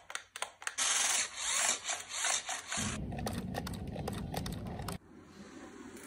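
Rubbing, scraping and rustling from handling the RC car's box and its packaging: bright and scratchy from about a second in, heavier and lower from about three seconds, then quieter after about five seconds.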